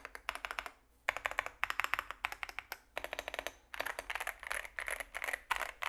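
Typing on an Epomaker RT100 mechanical keyboard: fast runs of key clacks in word-length bursts, with a short pause about a second in.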